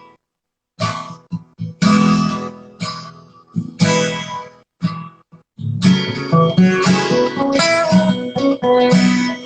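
Acoustic guitar playing an instrumental passage of picked notes and strummed chords between sung lines. The sound cuts out completely twice, near the start and about halfway through, like audio dropouts in a live stream, then the playing runs on steadily.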